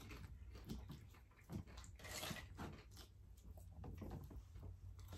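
Faint chewing and eating sounds, with scattered small clicks and crunches.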